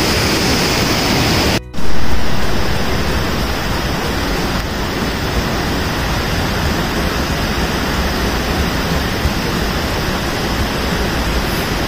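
Steady rushing of a mountain stream and waterfalls in a rocky gorge. About a second and a half in, the sound drops out briefly and comes back with a sudden loud jump.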